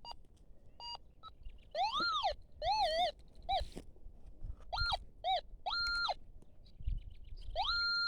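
Metal detector sounding off as its coil is swept over a buried target: a few short beeps, then a series of tones that rise and fall in pitch, and near the end a long, steady high tone. It is a very strong signal, which the detectorist reads as a non-ferrous ('nobre') target.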